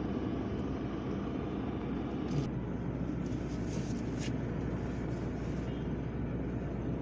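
Steady road and engine noise heard from inside a moving vehicle's cabin, with a couple of faint ticks about two and four seconds in.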